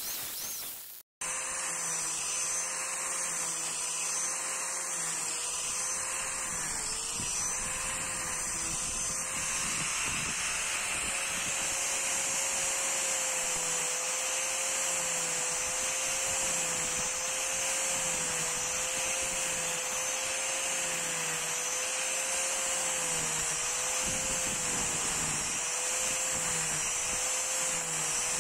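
Angle grinder fitted with a chain carving disc running and shaving wood, a steady motor whine whose pitch wavers slightly as the cutter bites. It starts after a brief cut-out about a second in.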